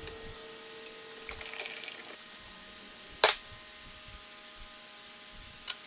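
Hands working a plastic engine cover and hose fittings off a scooter engine: small clicks and rattles, with one sharp click about three seconds in and another near the end. Faint background music runs underneath.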